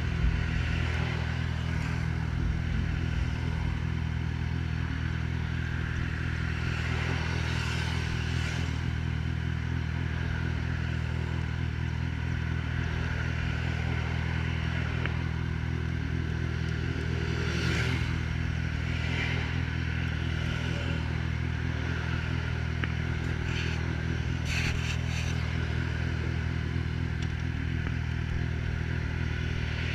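Yamaha XJ6's inline-four engine, breathing through an aftermarket Atalla 4x1 exhaust, running at a steady engine speed with an even exhaust note and no revving.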